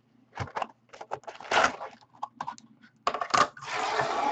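Cardboard Valor football trading-card box being opened by hand: a run of small taps and rustles as the lid and the inner card flap are handled, then a longer, louder rustle about three seconds in.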